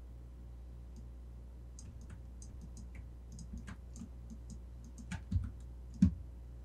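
A run of small, sharp clicks from a computer mouse and keyboard, a dozen or more over a few seconds, with two louder knocks near the end, over a steady low hum.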